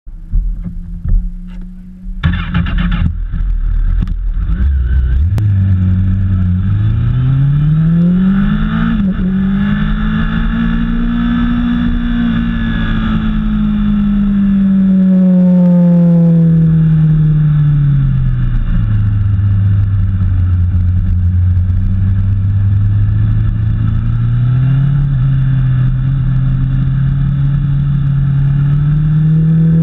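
Engine of a small track vehicle, heard onboard: it runs steadily at first, then gives a loud crackly burst about two seconds in and pulls away. Its note rises under acceleration, falls off as it slows through a corner, and rises again near the end, over a steady rush of wind noise.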